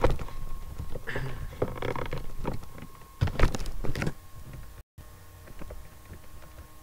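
Computer keyboard keys tapped in irregular clicks, with a louder cluster about three and a half seconds in, then fewer, fainter clicks. A faint steady tone hums underneath.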